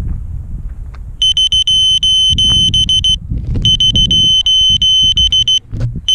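Electronic buzzer on a Vortex 230 FPV quadcopter sounding its lost-model alarm: a loud, high, rapidly pulsing beep in bursts about two seconds long, starting about a second in. Under it is a low rumble of wind or handling noise.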